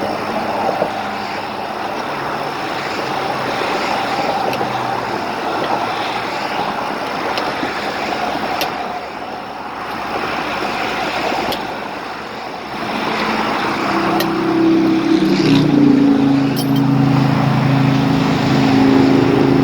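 Interstate traffic rushing past close by, cars and trucks making a steady roar of tyre and engine noise. About two-thirds of the way in a heavy vehicle's engine hum swells and stays loud to the end, with a few faint clicks along the way.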